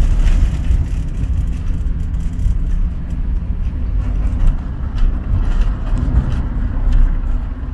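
Volkswagen Kombi van on the move, heard from inside the cabin: a steady low engine and road rumble with occasional small knocks and rattles.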